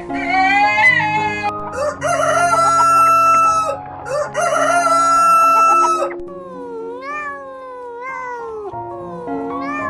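A rooster crowing twice, each crow about two seconds long, over steady background music.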